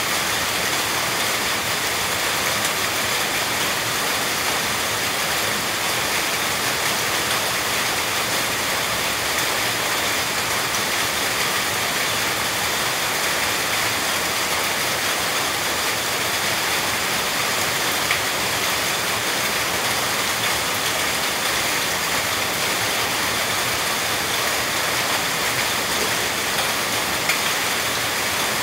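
Steady rain, an even hiss of falling water without a break.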